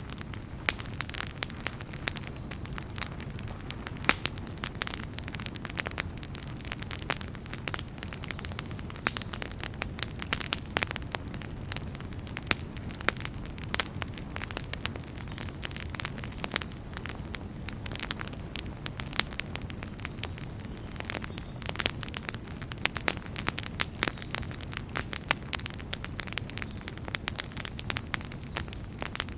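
Wood fire in a fireplace crackling, with a steady low rumble of flames under frequent sharp pops and snaps.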